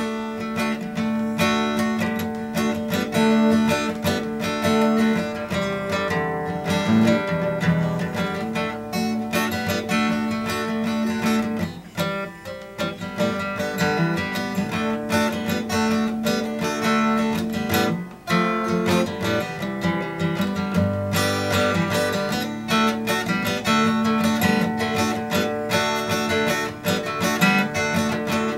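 Steel-string acoustic guitar playing an instrumental blues in D, with chords and picked notes that thin out briefly twice along the way.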